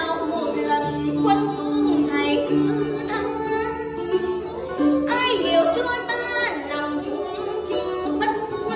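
A woman singing in Vietnamese cải lương style, her voice gliding and wavering, over an instrumental accompaniment that includes plucked strings.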